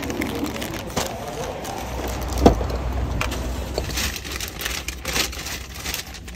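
Paper envelope and printed pages rustling and crinkling as they are handled, pulled out and spread open, with a single sharp thump about two and a half seconds in.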